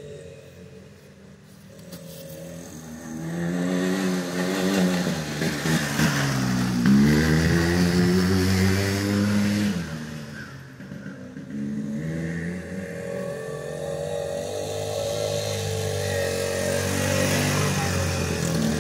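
Small youth ATV engine running as a quad is ridden around. Its pitch rises and falls with the throttle. It grows louder over the first few seconds, dips briefly about ten seconds in, then runs more steadily.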